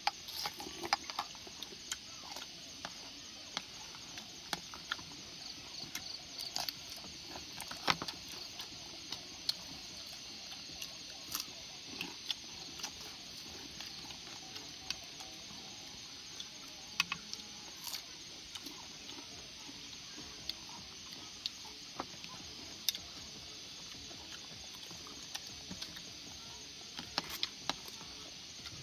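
Scattered, irregular small clicks and taps of eating and utensils at a meal, over a steady high chorus of night insects.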